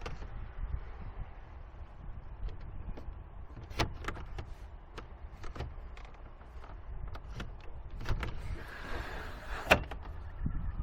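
Scattered clicks and knocks from handling the wagon's cargo area and its privacy cargo cover. A louder click comes about four seconds in, and the loudest sharp click about a second before the end, all over a steady low rumble.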